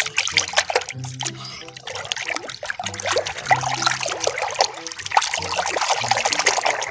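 Hand swishing and scrubbing a toy animal in a basin of foamy soapy water: continuous wet splashing and sloshing with a bubbly crackle. Soft background music runs underneath.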